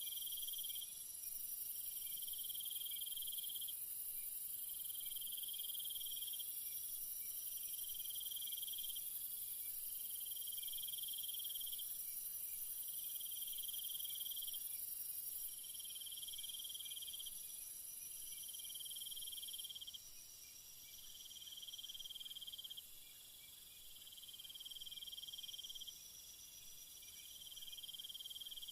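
Night insect chorus: a steady high-pitched hiss and drone of insects, with a trill that sounds for about two seconds and pauses briefly, repeating over and over.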